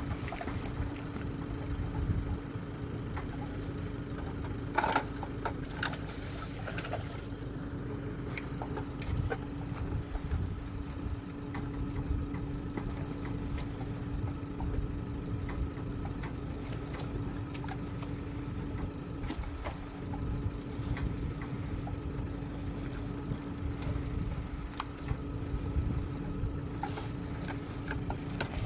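Vehicle engine idling steadily with a constant hum, and a few light knocks and clicks, the clearest about five seconds in.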